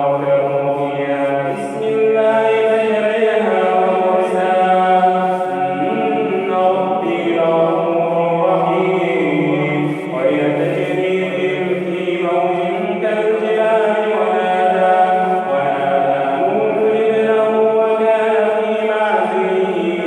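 A man's voice chanting Quran recitation in Arabic in a slow, melodic tajweed style, holding long notes that rise and fall in pitch.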